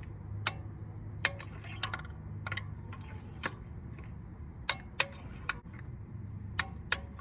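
Torque wrench clicking as spark plugs are tightened: about ten sharp single clicks at uneven spacing, some half a second apart, some over a second.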